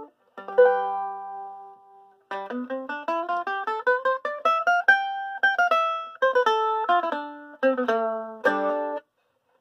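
Homemade four-string mandolin with a cedar top and sides and a walnut back, bright and penetrating in tone. A chord rings and fades, then after a short pause plucked notes climb step by step and come back down, ending with a few chords.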